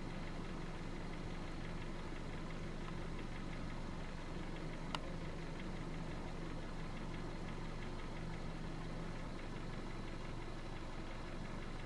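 Steady low engine hum, like a motor idling, with one short click about five seconds in.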